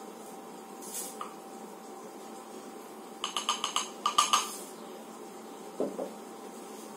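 A small steel cup clinking against the rim of a drinking glass as salt is tipped and tapped out of it, in two quick runs of taps about three and four seconds in. There is a soft knock near the end.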